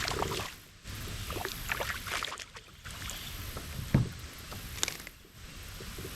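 Water sloshing and splashing around a kayak, with irregular knocks on the hull. The sharpest knocks come about four seconds in and again just before five seconds.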